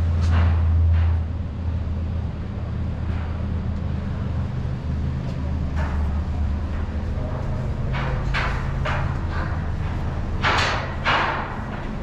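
Steady low machine hum, with a few short rushes of noise over it.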